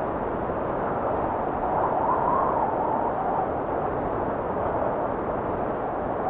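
Recorded wind blowing steadily, with a soft whistle that rises and falls about two seconds in.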